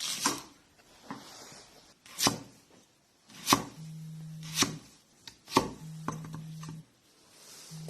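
Kitchen knife cutting an unpeeled radish on a chopping board: about five sharp chops roughly a second apart, with a few fainter knocks between.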